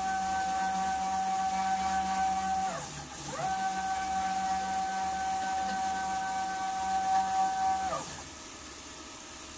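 Stepper motors of a DIY CNC router jogging an axis on its first test run after installation. There are two moves, each a whine that rises in pitch as the motor speeds up, holds a steady tone, then falls as it slows to a stop. The first move ends about three seconds in and the second about eight seconds in.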